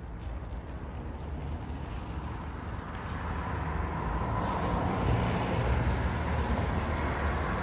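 Traffic noise from a busy road, a steady rushing that grows louder through the second half, with wind rumbling on the microphone underneath.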